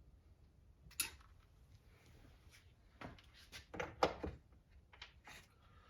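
Hand tools and small parts being handled during disassembly of a nitro RC car, making a few light clicks and knocks: a sharp click about a second in, then several knocks close together around three to four seconds in, and a fainter one near the end.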